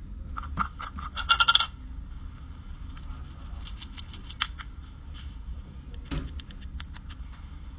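Irregular light clicks and taps with short scratchy rustles, loudest in a quick cluster about a second and a half in.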